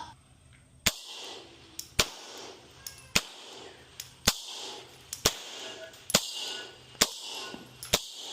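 Gunshots at a shooting range: eight single shots fired at a steady pace, about one a second.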